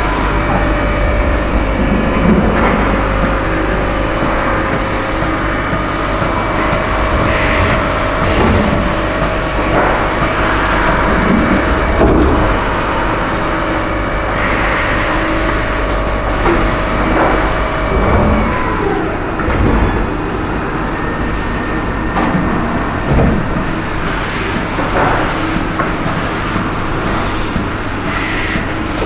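Machine-shop noise from CNC lathes running in a robot-fed machining cell: a loud, steady mechanical hum with a steady whine that stops about two-thirds of the way through, and occasional clunks.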